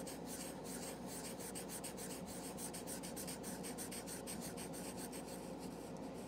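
Marker tip scribbling on paper, colouring in an area with quick back-and-forth strokes, several a second, easing off near the end.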